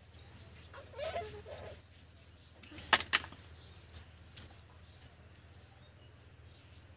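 A brief animal call about a second in, then a pair of sharp knocks near the middle and a few fainter clicks.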